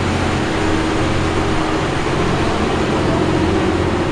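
Case IH Steiger four-wheel-drive tractor's diesel engine running steadily as the tractor drives by, a deep, even drone with a hum above it that strengthens slightly about a second in.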